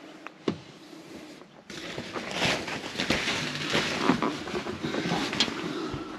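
A person clambering through a boat: a few light clicks, then, from just under two seconds in, a sudden dense rustling with scattered knocks and footsteps as they push past a torn plastic tarp and step along the deck into the cabin.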